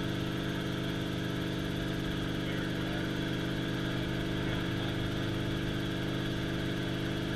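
Light helicopter in flight, heard from inside the cockpit: engine and main rotor running steadily, a constant drone with several fixed tones and no change in pitch.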